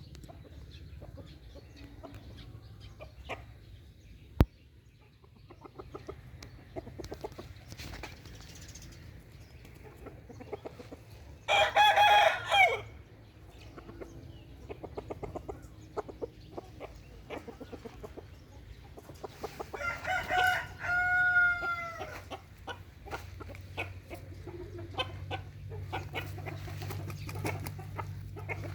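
Burmese gamecock crowing twice, once about twelve seconds in and again about twenty seconds in, with softer clucking and small ticks and scratches in between.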